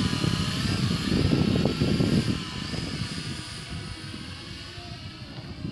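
Aircraft propeller motor running, its whine wavering up and down in pitch over a loud, gusty low rumble. A little over two seconds in the rumble drops away, and the motor grows fainter.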